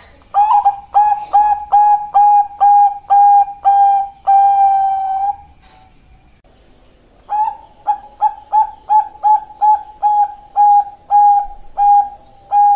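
Bangkok-type zebra dove (perkutut) song: two rapid runs of short, even coos. The first run has about ten notes and ends in a longer held note. After a pause of about two seconds, a second run of about a dozen notes follows.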